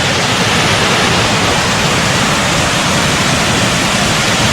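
Waterfall water rushing: a loud, steady, even noise with no breaks.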